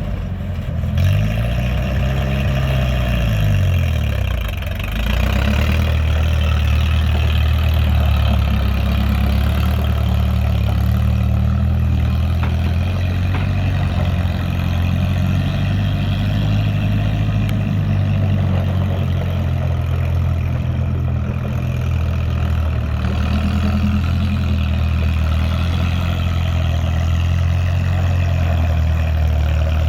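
1967 Allis-Chalmers I-600 backhoe's engine running. It revs up and back down once about a second in, then runs steadily.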